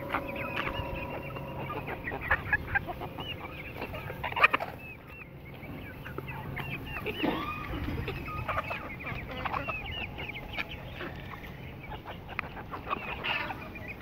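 A flock of young Aseel chickens clucking and peeping, many short calls overlapping, with a few louder calls about four and a half and seven seconds in.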